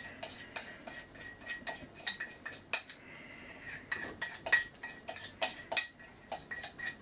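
Metal teaspoon clinking and scraping against the inside of a cup in quick, irregular taps, stirring sugar into the liquid to make a syrup. The tapping pauses briefly about three seconds in.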